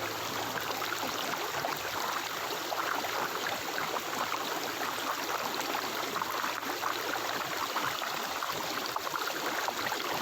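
Flowing stream water, a steady babbling rush.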